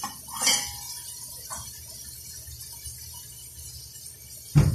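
A metal spoon clinks against a stainless steel pot once near the start. Near the end a wooden kitchen cabinet door shuts with a single sharp knock, the loudest sound, over a low steady hum.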